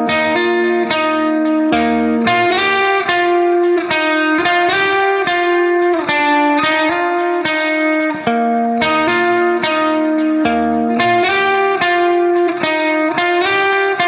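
Background music: a plucked guitar playing a steady run of repeated notes at an even pace.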